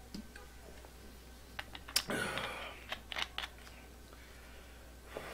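Plastic drink bottle clicking and crackling as it is handled after a drink, with a sharp click about two seconds in followed by a brief hiss, and a few quick clicks soon after.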